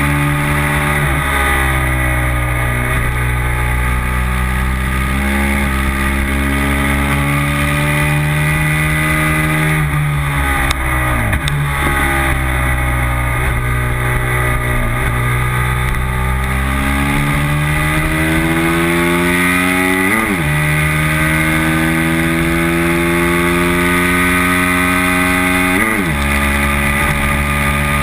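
Racing motorcycle engine at high revs, heard from the bike itself over a steady rush of wind. The engine pitch sinks about ten seconds in as the bike slows, then climbs steadily, with sharp drops about twenty and twenty-six seconds in as it shifts up a gear.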